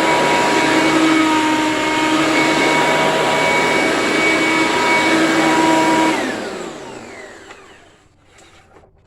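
Eureka TheBoss 10-amp soft-bag vacuum cleaner running steadily, then switched off about six seconds in; the motor's pitch falls as it winds down over about two seconds.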